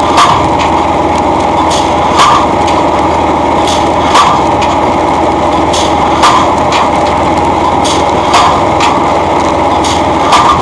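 Homemade pneumatic pile-driving hammer striking the top of a treated wooden pole, six heavy blows about two seconds apart. A steady machine noise runs underneath.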